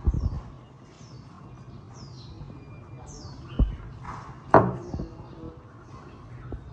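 Small birds chirping in short, quick falling calls, over a few dull knocks: one at the start, one about three and a half seconds in, and the loudest a second later.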